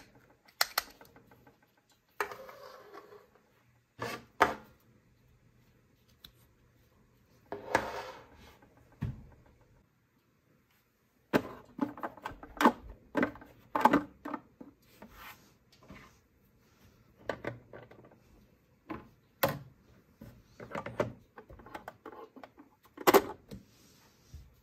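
Hard plastic parts of a Mickey Mouse fun house toy playset being handled: scattered clicks, taps and short scrapes as pieces are turned and figures set in place. There is a brief quiet stretch about ten seconds in, then a denser run of clicks and knocks.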